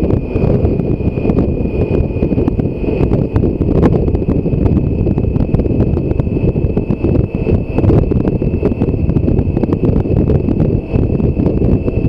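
Heavy wind noise buffeting the microphone on a BMW K1600 GTL motorcycle riding at road speed, with a faint steady high-pitched whine underneath.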